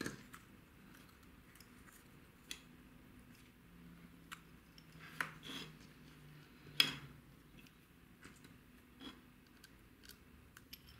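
Scattered small clicks and taps as a tiny screwdriver, small screws and the parts of a 1/28-scale RC drift car chassis are handled during assembly; the sharpest click comes about seven seconds in.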